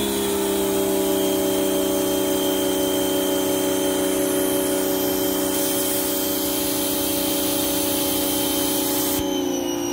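Giraffe Tools Grand Falls electric pressure washer running under load with the trigger held: a loud, steady motor-and-pump whine under the hiss of the water jet from a 40-degree tip, at about 1300 PSI on the gauge against a claimed 2200. Near the end the trigger is released, the spray hiss stops and the motor note dips slightly.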